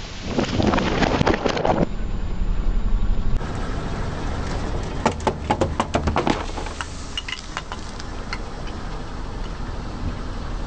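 Car tyre rolling over a row of full aluminium soda cans, crushing and bursting them: dense crackling crunches with spraying soda for the first two seconds, over the low running of the car. A few seconds later a second row of cans is run over, giving a quick series of sharp cracks.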